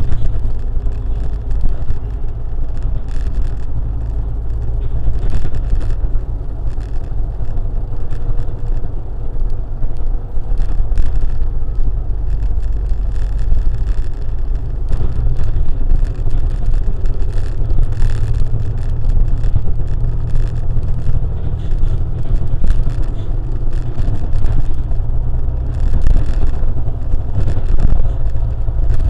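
A car driving along with a steady low rumble of engine and road noise, and brief swells of noise now and then.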